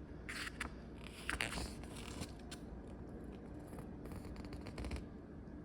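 Paper instruction manual being handled and its pages turned: a few brief rustles and soft scrapes with small clicks between.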